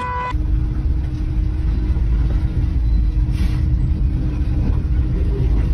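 Heavy diesel engine running with a deep, steady rumble and a steady drone over it. A brief hiss comes about three and a half seconds in.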